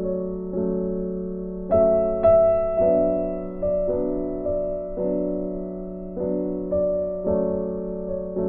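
Slow, gentle piano music: soft chords struck one after another, each fading away before the next.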